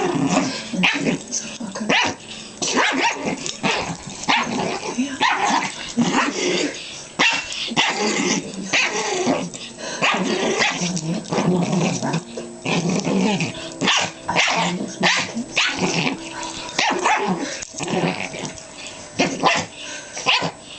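Two small dogs, a Pomeranian-Chihuahua mix and a Jack Russell terrier, play-fighting: continuous growling mixed with many short barks and yips. The growls are play, not real aggression.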